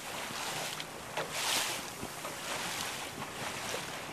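Water rushing and splashing along the hull of a small motorboat under way, rising and falling in surges, with wind buffeting the microphone.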